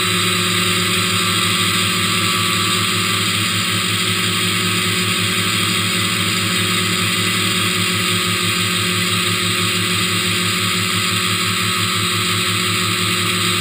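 Hexacopter's six electric motors and propellers whirring steadily in flight, heard from the GoPro camera mounted on the craft.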